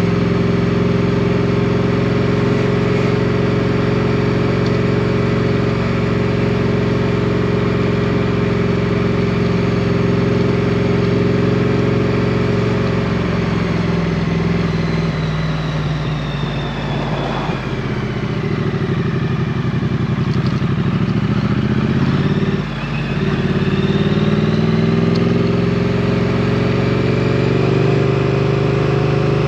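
Triumph Street Twin's 900cc parallel-twin engine running while riding. The note holds steady, falls as the bike slows about halfway through, breaks briefly about two-thirds of the way in, then rises again as it picks up speed.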